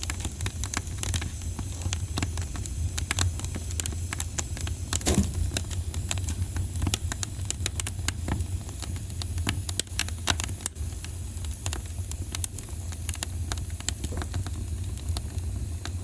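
Wood fire crackling in a fireplace: frequent sharp irregular pops and snaps over a steady low rumble, with one louder pop about five seconds in.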